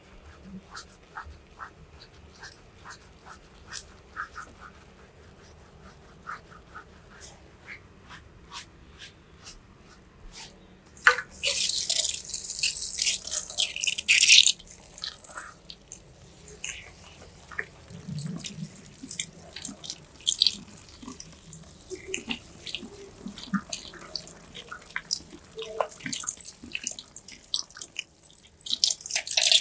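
Fingers scrubbing shampoo lather into hair make soft, regular squishing strokes. About eleven seconds in, water from a handheld shower sprayer hisses into a ceramic wash basin for a few seconds. After that come scattered splashes and drips as the hair is rinsed.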